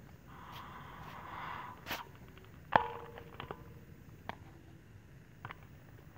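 Dry leaf litter rustling and crackling under macaques wrestling on the ground, with a soft rustle over the first two seconds and then a few sharp clicks and snaps, the loudest about three seconds in.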